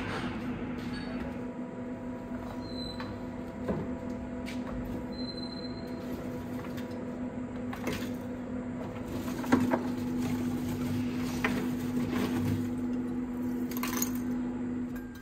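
A steady mechanical hum with a few light knocks and clicks.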